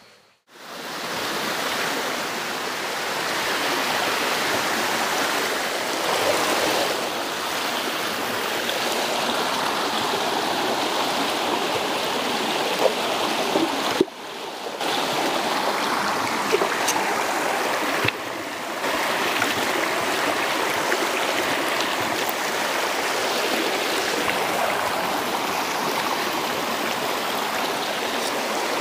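Shallow stream running over stones: a steady noise of flowing water, breaking off briefly about halfway through.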